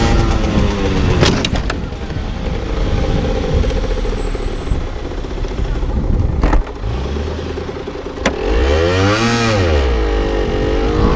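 Yamaha TZR 50's small two-stroke engine heard from the helmet camera with wind noise, its pitch falling as the bike slows through a bend past an oncoming car. Sharp knocks or clicks come a little over a second in, about the middle and about eight seconds in, and near the end the engine revs up and falls back.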